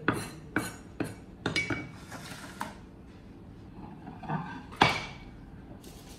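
A meat cleaver chopping meat on a wooden chopping board: about five sharp chops in the first two seconds, then one louder knock near five seconds in as the board is set down on the tiled floor.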